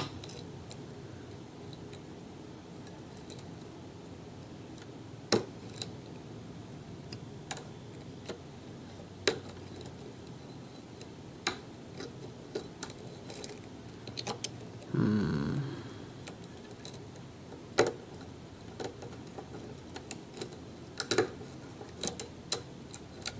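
Scattered sharp clicks and taps of lock picks and a tension wrench working the pins of a custom Kwikset-profile challenge lock, with a short low hum about fifteen seconds in.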